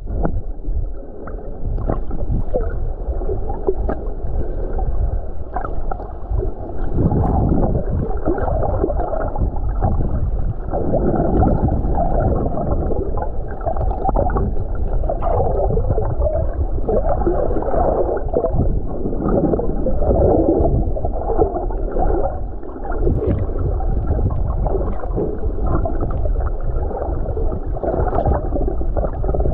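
Muffled underwater sound picked up through an action camera's waterproof housing: a steady low rush of moving water with warbling, gurgling bubble sounds and scattered faint clicks.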